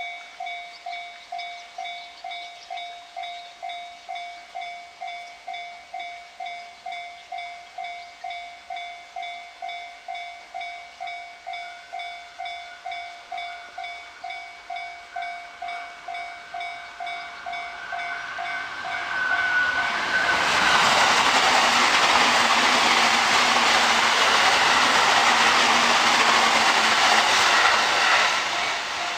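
A Japanese railway level crossing's warning bell rings in a steady rapid ding-ding, about two strikes a second. About two-thirds of the way in, a train arrives and passes through the crossing, and its loud running noise covers the bell until it eases near the end.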